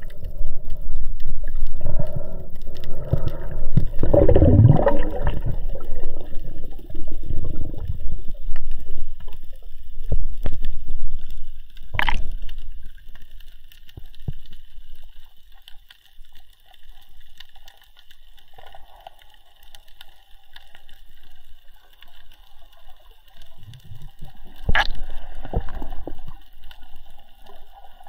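Underwater water noise picked up by a camera in its housing as a freediver descends: water gurgling and rushing over the housing loudly for the first several seconds, then settling to a faint steady hiss. Two sharp knocks come about twelve seconds in and near the end.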